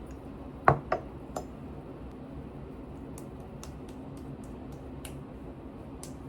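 Three sharp clicks about a second in, the first loudest, then faint scattered ticks over a steady low hum.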